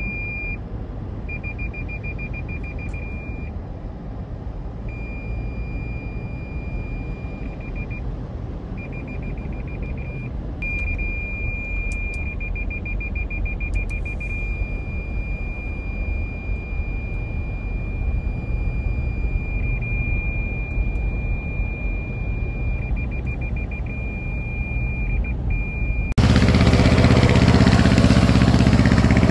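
Low steady rumble of a car driving through flood water, with a high electronic beep that holds for seconds at a time, pulses rapidly in places and drops out now and then. About 26 seconds in it cuts suddenly to much louder, fuller rushing noise.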